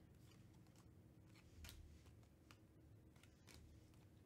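Faint swishes and clicks of glossy baseball trading cards being slid off a stack one at a time, several short strokes with two slightly louder ones.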